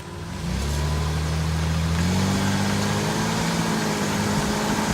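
Toyota Tacoma pickup's engine running steadily. It comes up about half a second in and rises a little in pitch about two seconds in, as when the truck gathers speed.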